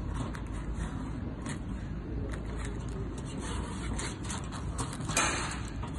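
Small metallic clicks and scraping from the parts of a door lock body being handled and turned, over a steady low rumble. A louder scrape comes about five seconds in.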